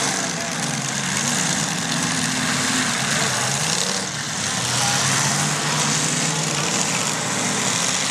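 Demolition derby car engines running and revving, several pitches rising and falling over each other, over a dense steady din.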